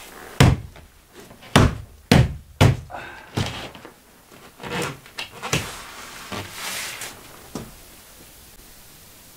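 A series of hollow thuds as a large OSB sheet is knocked and pressed into place against a wooden stud partition wall. About eight irregular knocks, the loudest in the first three seconds and fainter ones after, each ringing briefly in the board.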